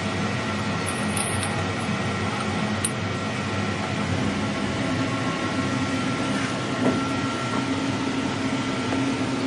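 Emco Turn 220 CNC lathe running: a steady machine hum with several whining tones, one of them shifting slightly higher about four seconds in.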